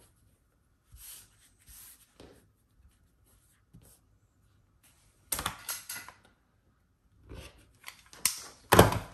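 Scissors cutting a length of elastic amid handling: faint rustles at first, then a run of sharp snips and rustles about five seconds in and again near the end, the loudest with a thump just before the end.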